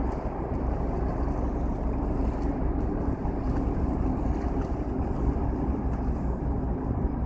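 Steady low rumble of boat engines across the water, mixed with wind buffeting the microphone.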